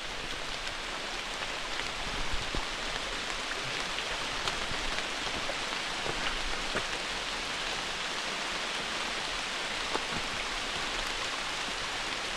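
Steady rain falling, with single drops tapping close by now and then.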